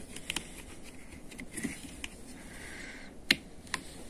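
Light clicks and taps from plastic and metal parts of a motorcycle fuel pump and float-type fuel-level sender being handled, with one sharper click about three seconds in.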